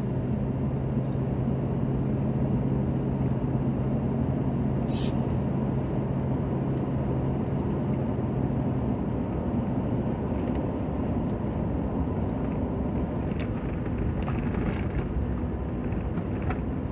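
Steady engine and road noise inside a pickup truck's cab while it drives along a road, with a steady low engine hum that fades out a little past halfway. One brief sharp high sound about five seconds in.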